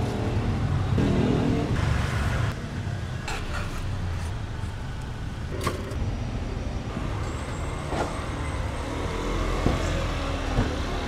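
Street traffic: a steady low rumble of passing vehicles, with a few sharp clicks and knocks.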